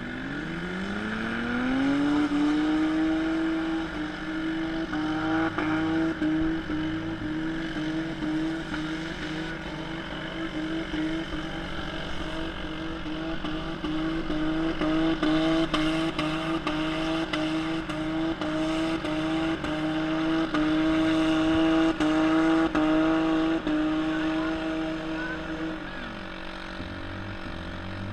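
Demolition derby car engine revving up over about two seconds, then held at high revs with a steady note for most of the time, dropping away near the end.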